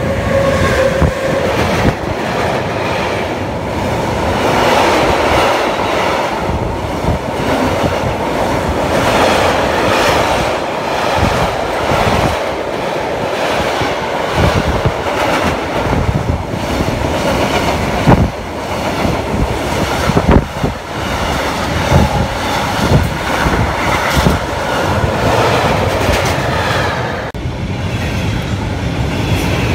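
Electric freight train passing close by: a Siemens ES 64 F4 locomotive followed by a long string of container wagons, the wheels clattering steadily over the track, with two louder clanks about two-thirds through. Near the end the clatter dips briefly and a second train comes in on the other track.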